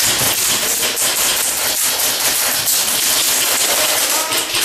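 Airsoft fire: a loud, steady rattle of very rapid shots and BBs striking, over a hiss.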